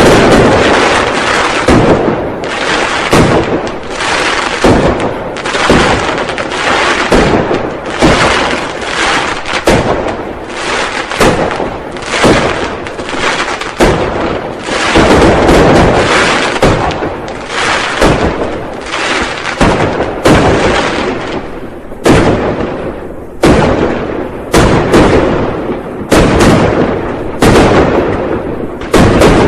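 Firecrackers and fireworks exploding in a dense, continuous barrage: many loud bangs, often several a second, each followed by a short echoing tail.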